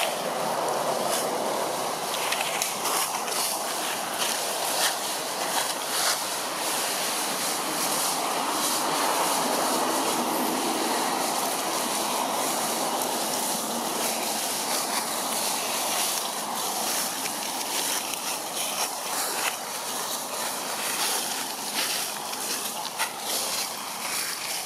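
Steady rushing outdoor background noise, with scattered light crackles of dry leaf litter as macaques move over the forest floor.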